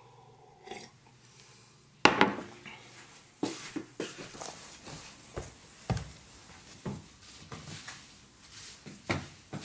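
A drinking glass set down hard with a sharp clack about two seconds in, followed by scattered lighter knocks and clatter in a small room.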